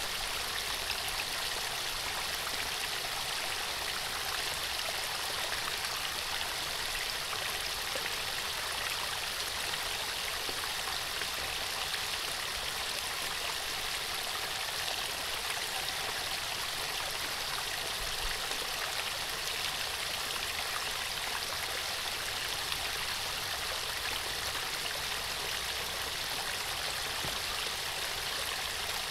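Small waterfall: a steady, even rush of falling and splashing water.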